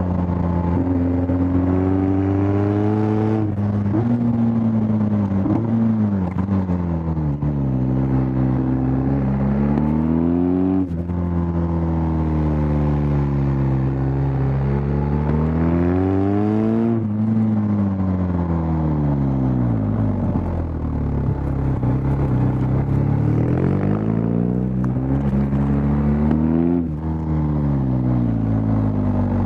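BMW R1250 GS Adventure's 1254 cc boxer twin engine under hard riding. The revs climb under acceleration and fall away off the throttle, over and over, with a few sudden drops in pitch at gear changes.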